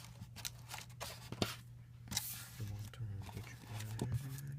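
Cardboard VR headset and its Velcro headband strap being handled and fitted: light taps and scrapes, with a short rasping burst about two seconds in. A low murmuring voice comes in during the second half, over a steady low hum.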